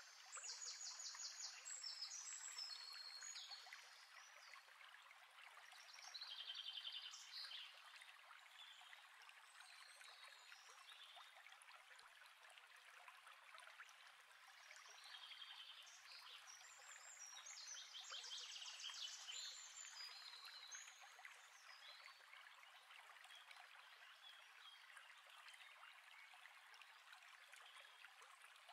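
Faint nature soundscape: a steady rush of running water, with birds singing several bursts of rapid, high trills over it, the loudest near the start and between about fifteen and twenty seconds in.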